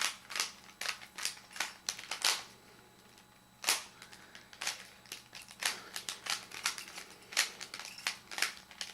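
A worn, sticky plastic Rubik's Cube being turned by hand: a run of sharp clacks as the layers are twisted, about two or three a second, with a pause of about a second a little before halfway.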